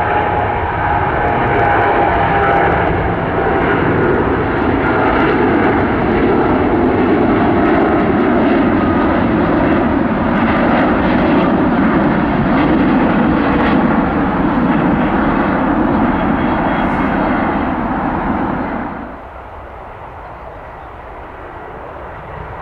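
Jet engines of a Boeing 777-200ER at take-off power as it climbs away: a loud, steady rush with a tone that slides slowly lower. About nineteen seconds in, the noise drops suddenly to a much quieter jet sound.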